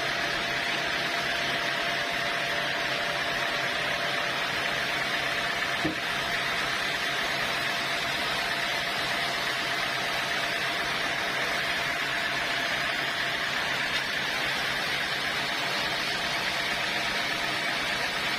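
Sawmill machinery running steadily: an even hiss with a faint high hum, and a single small knock about six seconds in.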